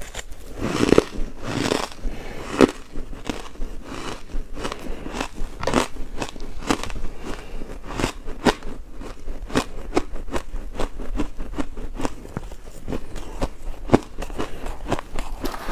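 Ice being bitten and chewed: a dense, irregular run of sharp crunches and cracks, with a few bites louder than the rest.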